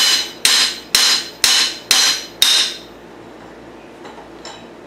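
Steel hammer striking the steel flywheel of a pressed-together motorcycle crankshaft: six ringing blows, about two a second, that stop about halfway through. The blows are knocking the flywheels back into line because the crankshaft is running way out of true.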